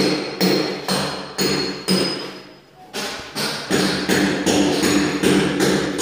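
Hammer blows on a chisel, about two strikes a second, each with a metallic ring, with a brief pause a little before the middle: workers chiseling.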